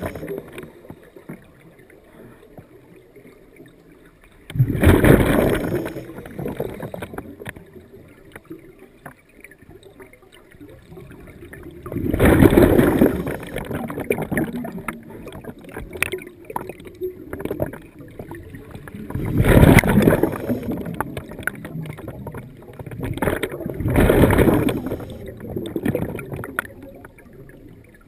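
Scuba diver exhaling through a regulator underwater: four bursts of rushing, bubbling air several seconds apart, one per breath, with a quieter hiss between them.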